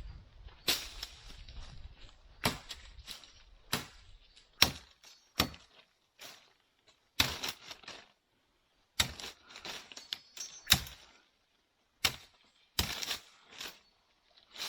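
A blade chopping into a dead embaúba (Cecropia) trunk: a series of sharp, irregular chops, some a fraction of a second apart, others separated by short pauses.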